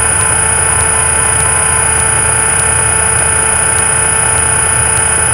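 Cessna 172's engine and propeller running steadily, heard from inside the cabin as an even low drone with a thin high-pitched whine over it.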